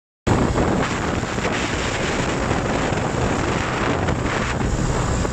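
Small off-road buggy's engine running as it drives, with wind buffeting the microphone over it.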